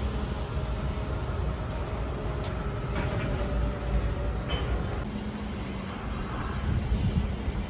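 A train in motion: a steady low rumble with faint, thin squealing tones from the wheels on the rails.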